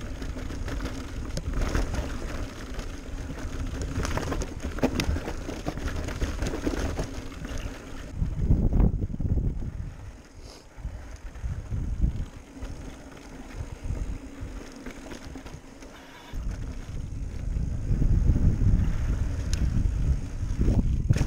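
Electric mountain bike ridden on a dirt trail: tyres rolling and rattling over dirt and rocks, with a steady hum from the pedal-assist motor through much of it. Wind buffets the microphone, loudest in a gust about two fifths of the way in and again through the last few seconds.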